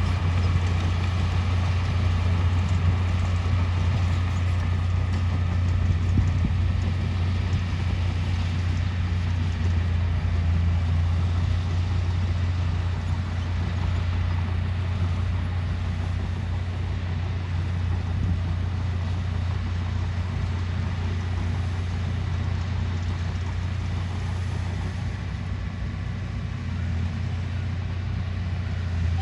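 Diesel engine of heavy earthmoving machinery running steadily under work, a constant low drone with no breaks or revving.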